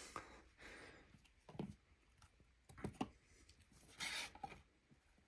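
Quiet handling of trading cards on a cloth mat: soft slides and a few light taps, with a brief swish about four seconds in.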